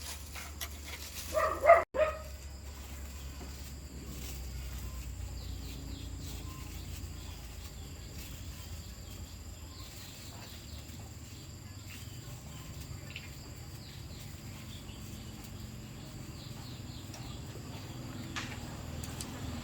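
Outdoor background with faint insect and bird chirps over a steady low hum. A short, loud, pitched sound comes about a second and a half in and stops abruptly.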